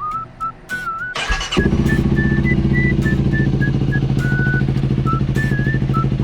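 Honda Rebel 250's single-cylinder engine cranked by its electric starter, catching about a second and a half in and settling into a steady idle. It is being run to circulate fresh engine oil after an oil change.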